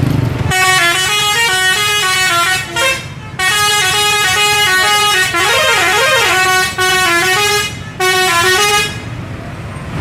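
A Scorpion Holiday tour bus playing its 'telolet' musical air horn, a melody of stepping notes in three runs, with short breaks about three and eight seconds in. In the middle run the notes give way to a warbling, siren-like passage.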